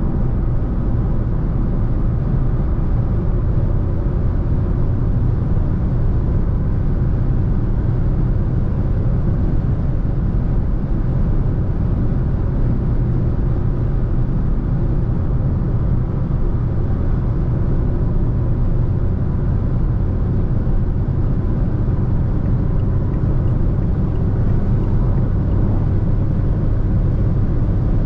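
2020 Fiat Egea hatchback with a 1.6-litre diesel cruising at motorway speed: a steady, unbroken low rumble of engine drone and tyre and road noise.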